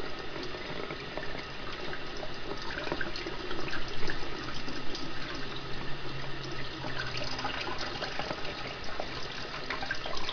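Kitchen tap running in a steady stream, water splashing into a stainless steel sink and over a hand held beneath it.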